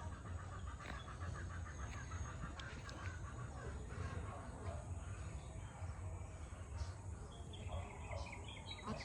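A flock of ducks quacking and chattering, many quick calls overlapping, busiest in the first few seconds and again near the end, over a steady low rumble.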